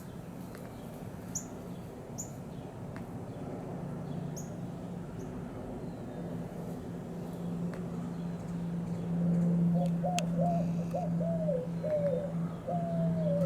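A dove cooing, a quick run of short coos in the last few seconds, with a few brief high chirps from a small bird in the first seconds and a steady low hum underneath.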